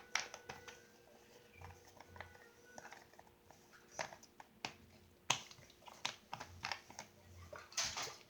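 Irregular small clicks and taps from handling slime ingredients while baby oil is added to the slime mixture, a few sharper ones standing out, over a faint steady hum.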